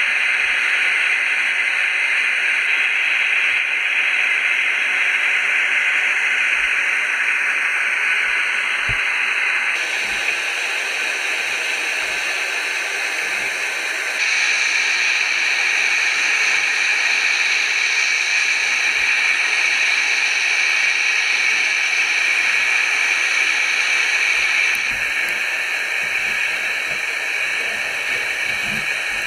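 Steady static-like hiss that steps up or down in level a few times, with a faint knock here and there.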